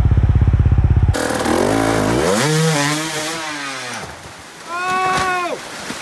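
Dirt bike engine running with a fast, steady pulse that cuts off suddenly about a second in. Rushing water follows, with a dirt bike engine revving up and dying back down over a couple of seconds, then a brief higher rise and fall near the end.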